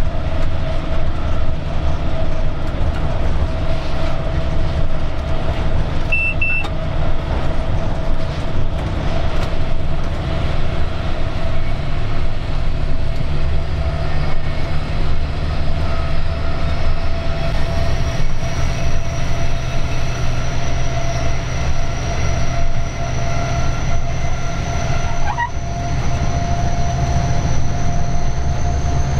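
Cab sound of a Vossloh G 1206 diesel locomotive under way: a steady low engine drone and running noise, with a faint high whine that slowly climbs in pitch over the second half. A short beep comes about six seconds in.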